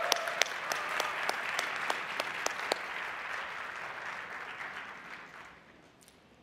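Large audience applauding, with a few sharp single claps standing out. The applause dies away over the last two seconds.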